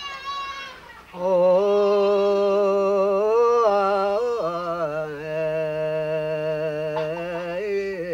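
An old man singing a traditional Trobriand song unaccompanied, in a chant-like style. His voice comes in strongly about a second in and holds long notes, dropping to a lower note a little after four seconds.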